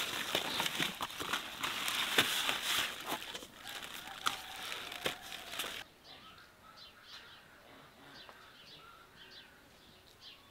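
Kohlrabi being harvested: leaves and stems rustling and crackling as they are handled and cut, with a few sharp snaps. About six seconds in this stops abruptly, leaving faint, repeated bird chirps.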